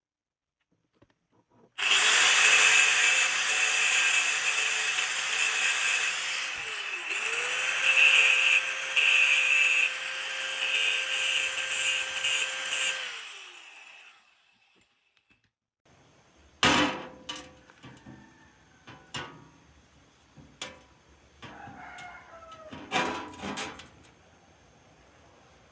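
Electric power tool running under load with a harsh hiss for about eleven seconds, its motor briefly slowing and picking up again partway through. Then scattered sharp clicks and knocks.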